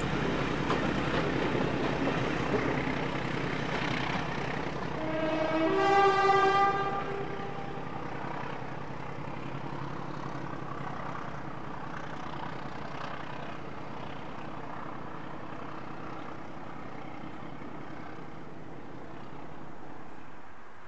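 Diesel locomotive engine running and fading as it draws away; about five seconds in its horn sounds briefly, a lower note stepping up to a higher one.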